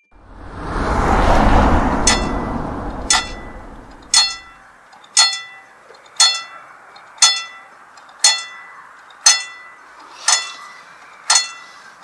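A train rushes past, its rumble swelling and fading over the first few seconds, then a level-crossing alarm bell rings with slow, evenly spaced strikes about once a second, ten in all.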